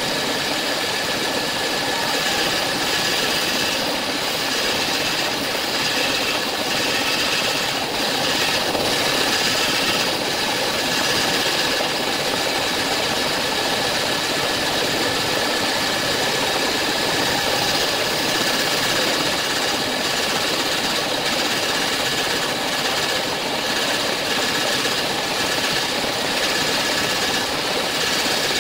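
Bandsaw running steadily, its blade cutting through a thick block of solid wood, with a steady whine over the cutting noise.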